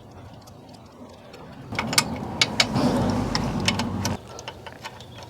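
Hand ratchet clicking in short strokes on a socket, with some metal clatter, running in bracket bolts on an engine; the clicking comes in a burst from about two seconds in and stops a little after four seconds.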